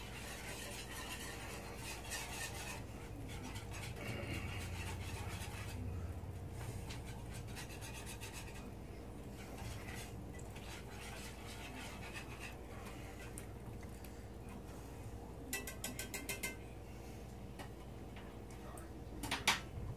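Metal spoon stirring and scraping in a cast iron skillet of bubbling butter, brown sugar and pineapple. There is a quick run of clinks about fifteen seconds in and a single sharp clink near the end.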